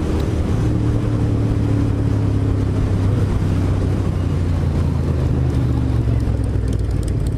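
Sport motorcycle's engine running steadily at cruising speed, heard from the rider's seat, with wind rushing over the camera microphone.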